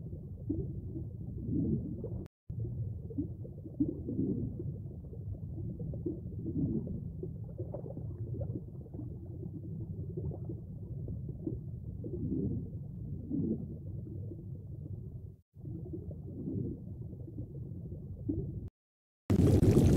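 Underwater bubbling and gurgling sound effect of Google's 3D great white shark model: a low, muffled watery swirl that swells and ebbs, cutting out briefly twice and again near the end.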